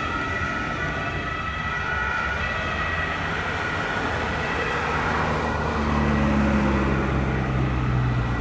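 Ambulance siren fading as the ambulance drives off, over road traffic noise. From about three seconds in, a bus engine close by grows louder and hums steadily.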